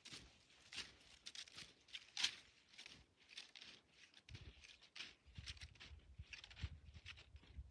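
Faint, irregular crackling and rustling close to the microphone, with a low rumble joining about four seconds in.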